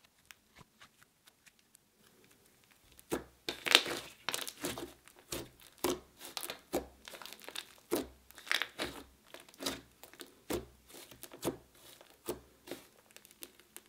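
Hand squishing and kneading a soft, creamy butter slime, giving an irregular run of clicks and small pops, faint at first and louder from about three seconds in.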